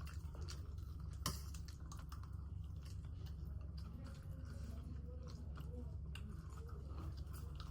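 Close-up chewing of food, with many small wet mouth clicks and one sharper click about a second in, over a steady low hum.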